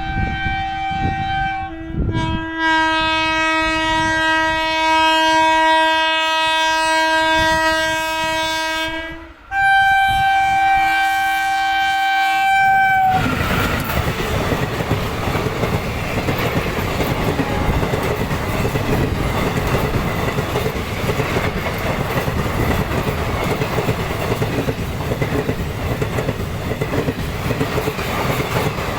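WAP-1 electric locomotive's horn sounding in long, loud blasts, changing pitch about two seconds in, with a short break near nine seconds, then stopping abruptly. The train then passes, its wheels clattering rhythmically over the rail joints.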